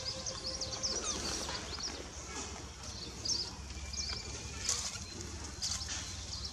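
Many short, high-pitched animal chirps and squeaks, coming in quick scattered clusters over steady outdoor background noise.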